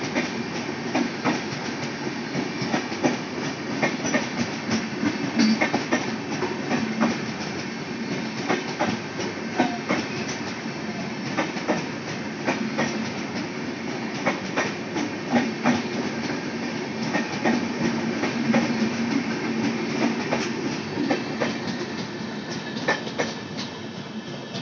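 Rajdhani Express passenger coaches rolling slowly past, a steady rumble with frequent sharp clicks as the wheels run over the rail joints. The sound fades near the end as the rear power car goes by.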